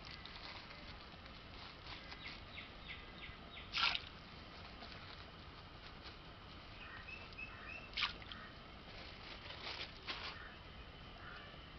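Faint stirring of thin masala liquid with a long ladle in a large aluminium pot, with small clicks and light liquid sounds. Two brief sharp sounds stand out about four and eight seconds in, and a few short bird chirps come near the middle.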